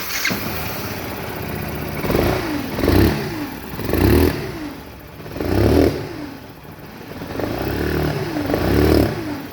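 Yamaha Factor 150 single-cylinder motorcycle engine starting, then revved several times, with a whine that rises and falls with the revs. The whine is a turbine-like noise that seems to be a broken bearing but that the owner traces to a shorted stator.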